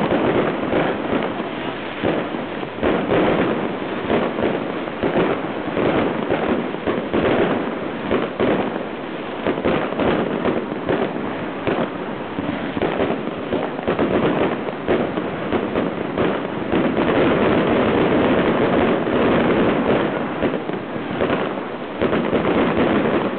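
Fireworks display going off: many bangs and pops in quick succession, continuously, from aerial shells and rising fountain trails. The bangs come thickest in a dense stretch about two-thirds of the way through.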